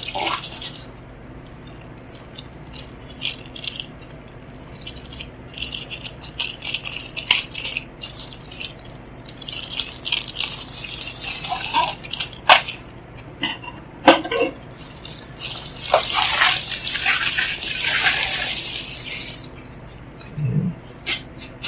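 A parcel being opened by hand: plastic packaging crinkling and rustling, with scattered clicks and taps, busiest in a long rustle near the end.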